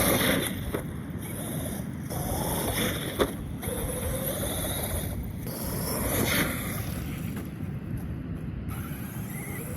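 Radio-controlled truck's motor whining, its pitch rising and falling several times as it revs, over a steady rushing noise, with one sharp click about three seconds in.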